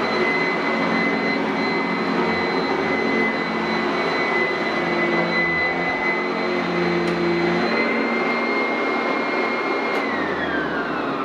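Sanitaire SC899F commercial upright vacuum running with a steady high whine, then switched off about ten seconds in, its whine falling as the motor winds down.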